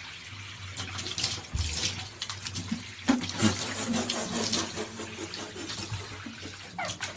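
Running water splashing, with a few short falling squeaks near the end.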